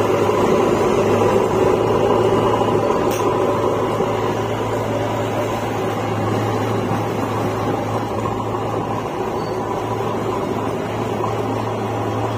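Vehicle engine running steadily at an even speed while driving, a constant drone with a strong low hum.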